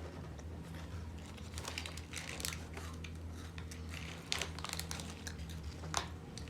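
Plastic snack packaging crinkling and rustling as it is handled, with many small irregular clicks, over a steady low hum.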